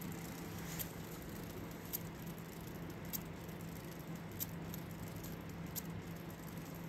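Freely spinning bicycle rear wheel coasting, with a light tick about once per wheel turn, the ticks spacing out slightly as the wheel slows. The tick comes from a little piece of tape or reflective strip sticking up on the rim and catching at the rim brake.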